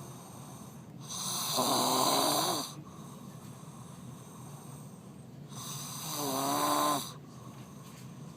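A man snoring: two long, loud snores about four and a half seconds apart, each lasting one to two seconds, with quieter breathing noise between them.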